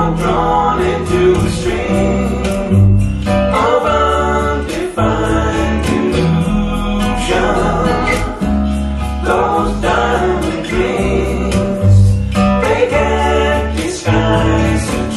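A song with singing and band accompaniment playing through a pair of home-built three-way coaxial open-baffle loudspeakers (15-inch Eminence bass drivers, Eminence PSD2002S compression-driver tweeters), heard in the room with heavy bass.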